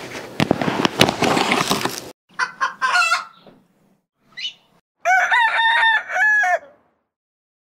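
About two seconds of dense crackling noise, then a few short hen clucks and a rooster crowing, cock-a-doodle-doo, starting about five seconds in.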